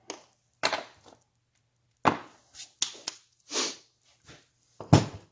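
A series of about seven sharp, uneven knocks and clunks from the engine parts and tools being handled during crankcase assembly, with the loudest one near the end.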